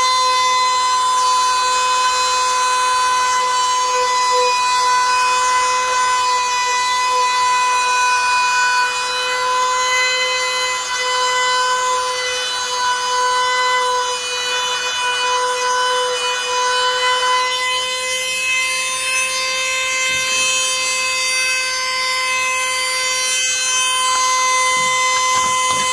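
A power tool runs at a steady high speed with a constant whine while it works the material. Its upper tones change a little about two thirds of the way through.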